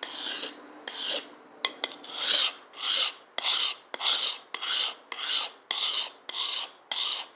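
Knife blade being sharpened in repeated rasping strokes across a sharpener. There are a few slower strokes at first, then a steady rhythm of about two strokes a second, as the edge is reground to take out its nicks.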